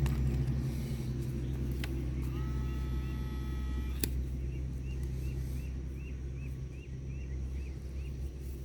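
Metal detector giving a steady beep for about a second and a half as a target is checked in a scoop of sand, over a constant low rumble. A sharp click follows, then a small high chirp repeats about twice a second.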